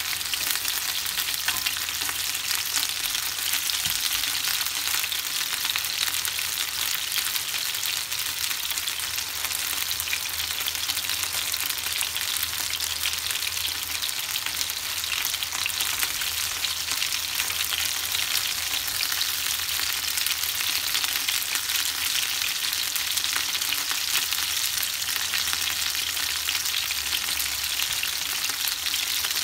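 Chicken wings sizzling and crackling steadily in hot oil in a nonstick frying pan.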